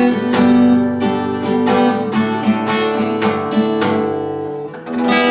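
Acoustic guitar strumming chords in a steady rhythm. Near the end it breaks off briefly and a new chord is struck and left to ring.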